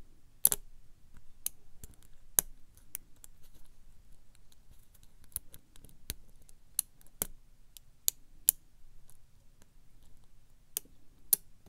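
Steel lock pick and tension wrench working the pins of a K1 Locks Unkle Billy brass challenge lock during single-pin picking: sharp, irregular metal clicks and ticks, some louder than others, as the pick lifts and drops pins.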